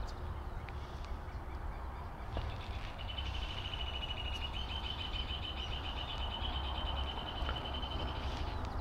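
A bird's long, rapid trill, a fast string of high notes held for about five seconds, starting about three seconds in, over a steady low rumble.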